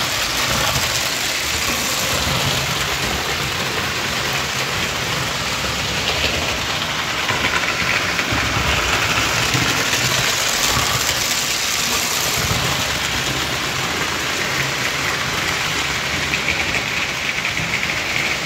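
Several O-gauge electric toy trains running on three-rail tubular track, a model steam locomotive passing close by: a steady noise of electric motors and metal wheels rolling on metal rails.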